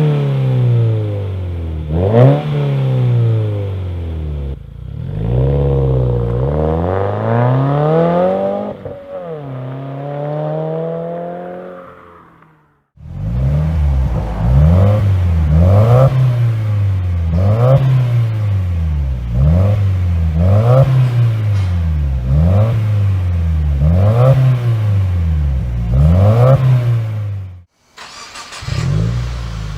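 Subaru WRX turbocharged flat-four with an aftermarket exhaust, revved again and again with the pitch climbing and falling back each time. Around halfway the sound cuts off and restarts with a regular run of quick revs, about one every second and a half, which cuts off again near the end.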